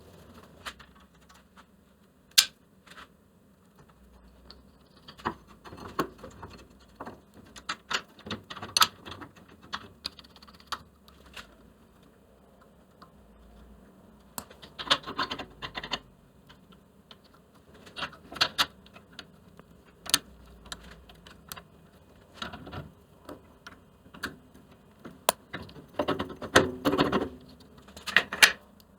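Small metal parts and hand tools clicking and clinking as cleaned bandsaw blade guide parts are put back together: scattered sharp clicks and short runs of clattering, busiest near the end.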